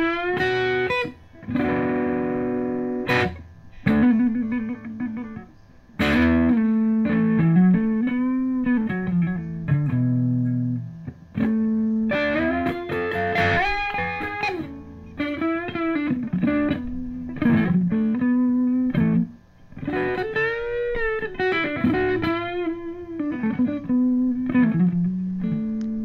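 Electric guitar played through a Boss Katana Artist MK2 combo amp: single-note melodic lines with string bends and vibrato, broken by a few short pauses.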